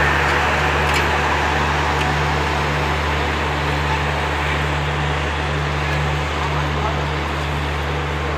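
Passenger train pulling away along the track: a steady low hum with rolling noise that slowly fades as it recedes.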